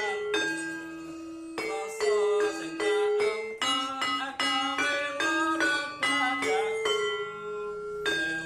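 Instrumental music without singing: a melody of sharply struck notes that ring on, about two a second, over a faint low bass line.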